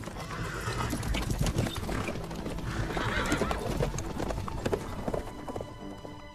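Hoofbeats of several horses ridden fast over a forest floor, a dense irregular thudding that passes close, with a horse whinnying. The hoofbeats thin out near the end.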